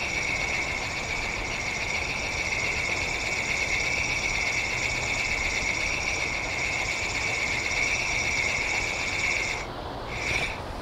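Small spinning reel being cranked steadily, a continuous gear whir as a crankbait is retrieved. The whir stops near the end, then comes back in one brief burst of cranking.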